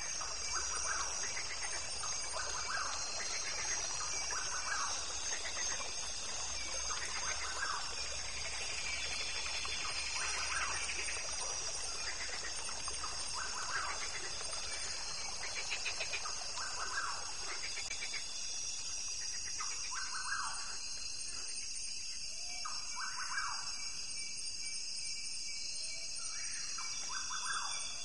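Tropical forest ambience: a steady high-pitched drone, like insects, with short chirping bird calls repeating every second or two.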